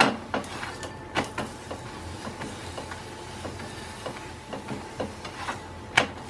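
Black slotted spatula knocking and scraping against a nonstick frying pan as a thepla is turned and pressed while it roasts in oil: sharp knocks at the start, about a second in and near the end, with lighter taps between.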